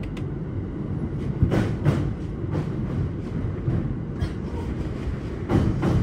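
Joban Line train running slowly under a strong-wind speed restriction, heard inside the carriage: a steady wheel-on-rail rumble with pairs of sharp wheel clicks over rail joints, the two pairs about four seconds apart.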